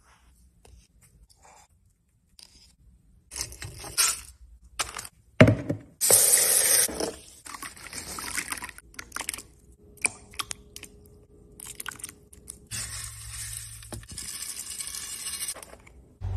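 Kitchen food-prep noises as feed is mixed by hand: a metal spoon scraping in a tub of powdered brewer's yeast, then a loud rush of water into a plastic bowl about six seconds in, and frozen green peas dropping into the water among scattered clinks and scrapes.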